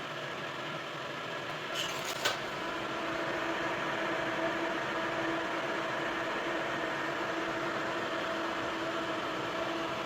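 A motor running steadily with a steady hum, with a couple of short clicks about two seconds in.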